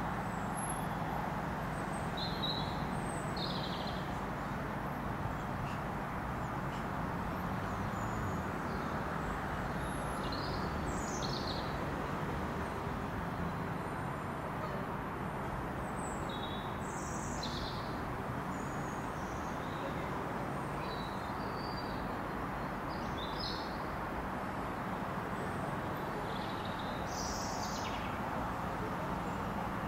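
Steady low drone of a distant Class 66 diesel locomotive's two-stroke V12 engine as it approaches, with birds chirping at intervals throughout.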